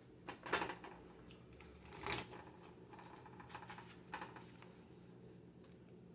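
A few faint, short rustles and clicks of hands handling sandwich makings: two just after the start, one about two seconds in and one about four seconds in.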